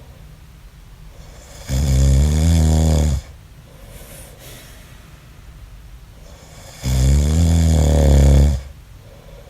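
A man snoring in his sleep: two long, low snores about five seconds apart, each lasting about a second and a half.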